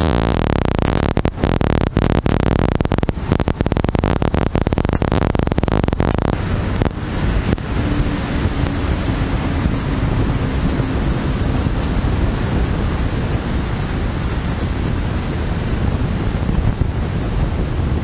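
Malfunctioning stream audio: loud crackling, distorted static for about the first six seconds, then a sudden change to a steady rushing noise with a faint high whine. It is the sign of a faulty microphone or audio feed.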